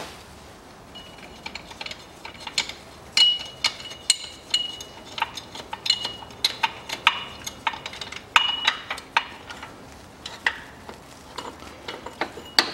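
Irregular metallic clicks and clinks of hand tools and metal parts at a car engine's timing-belt tensioner roller as it is unbolted and taken off, with short high squeaks between them in the first part.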